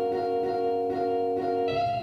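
Background music of soft plucked guitar chords, the notes held and changing about every second.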